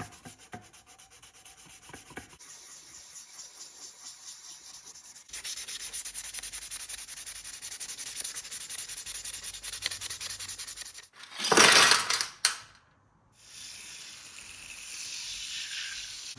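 Sanding and rubbing, a steady rasping scrape that starts and stops abruptly several times, with a short loud whoosh about eleven and a half seconds in.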